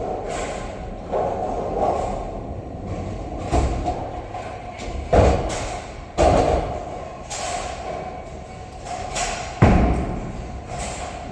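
Bowling balls and pins in a large, echoing bowling alley: a steady rumble of balls rolling down the lanes, broken by four loud thuds and crashes of balls landing and pins being struck, the loudest near the end.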